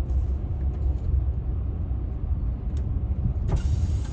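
Van driving slowly, a steady low rumble of engine and road, with a brighter hiss coming in near the end.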